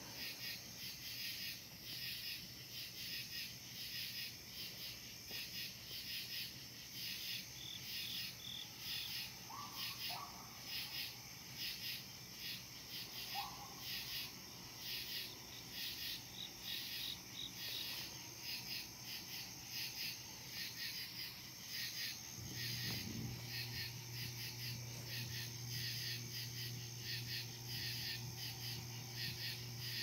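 Night insect chorus of crickets chirping in rapid, regular pulses. About three-quarters of the way through, a low steady hum starts and continues under the chirping.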